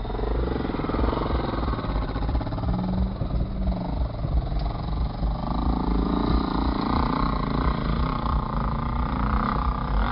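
Jeep Cherokee XJ engine running steadily under load as the SUV crawls off-road, its pitch shifting up and down with the throttle, heard from inside the cab.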